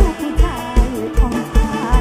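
Live mor lam band playing a toei song with a steady kick-drum beat, about two and a half beats a second, while a woman sings a sliding, ornamented melody over it through a headset microphone.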